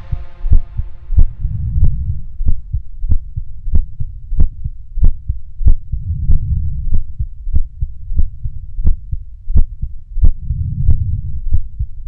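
Suspense soundtrack: a low pulse beating steadily about one and a half times a second, each beat carrying a sharp click, over a low rumble that swells and fades.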